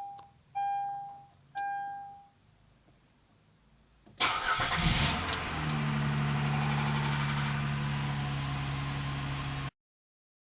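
Hyundai Azera dashboard chimes sound three times. About four seconds in, the engine cranks and catches with a loud rattle lasting a second or so, then settles into a steady fast cold idle that cuts off near the end. The owner puts the start-up rattle down to the tensioner, before oil has charged the CVVT system, and says it does no harm to the engine.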